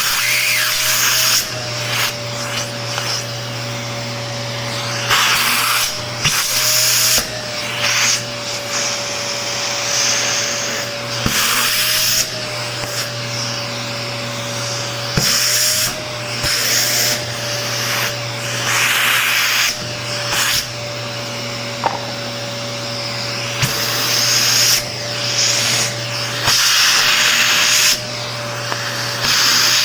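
Vacuum cleaner running steadily with a constant motor whine, its suction hiss swelling and dropping in short surges every few seconds as the nozzle is worked over the parts of an electric fan.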